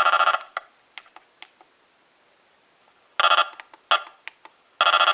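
A weather radio's electronic alert beeper going off in uneven bursts: one cutting off right at the start, a short one about three seconds in, and a longer one starting near the end, with scattered clicks between. The stuttering fits weak reception in the wind, which the owner blames for the radio not going off right.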